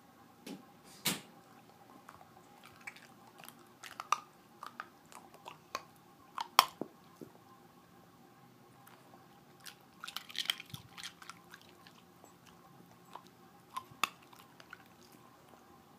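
A Boston terrier crunching ice cubes in its teeth: sharp, irregular crunches with quiet gaps between them, including a quick run of crunches around ten seconds in.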